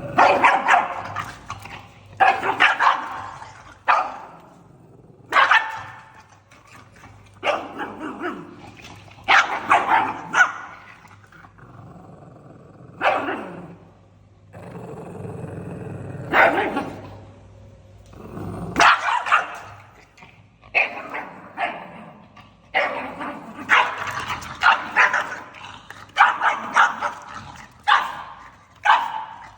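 Pug barking angrily over and over in short bursts, with low growls between some of the barks.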